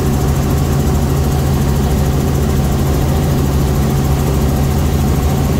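Light helicopter in cruising flight heard inside the cabin: a steady, loud drone of engine and rotor with a low hum and a fast, even low beat.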